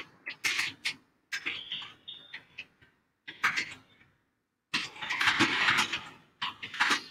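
Computer keyboard typing in quick runs of keystrokes, with dead-silent gaps between the runs.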